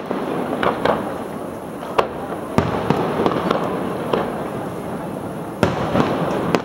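Fireworks display: about eight sharp bangs from bursting shells at irregular intervals, some in quick pairs, over a steady background rumble.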